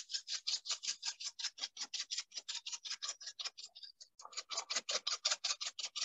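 Plastic spice shaker shaken hard and fast over a pot, the seasoning rattling and hissing out in quick even strokes, about six or seven a second, with a brief pause about four seconds in.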